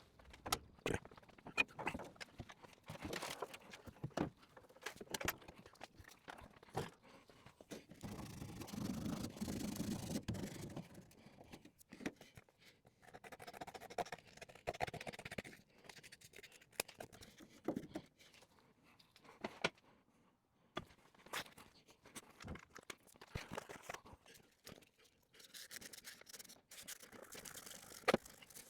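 Faint hand work with cardboard: scattered taps and knocks, with stretches of scraping and rustling as the cardboard is handled, torn and marked up for a template.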